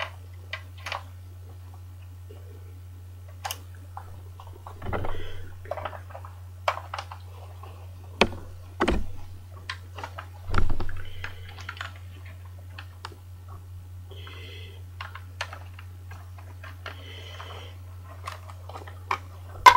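Plastic Lego pieces being handled, taken apart and fitted back together: irregular light clicks and clacks, with a few heavier knocks about five, nine and eleven seconds in. A steady low hum sits underneath.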